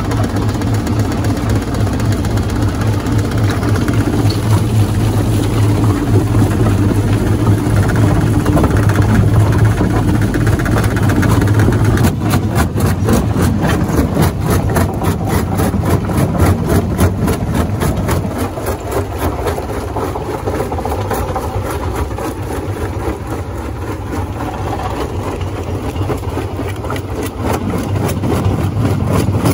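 Large jaw rock crusher running: a loud, steady, heavy mechanical drone. A fast, even pulsing joins it about twelve seconds in, and it eases off a little in the last third.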